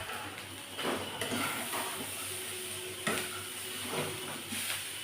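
Chili sambal frying in a pan with a steady sizzling hiss, while a spatula scrapes and clinks against the pan several times as it is stirred.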